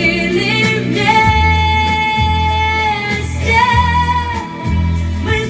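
Pop ballad's closing section: a woman singing long held notes over a pulsing bass and keyboard backing.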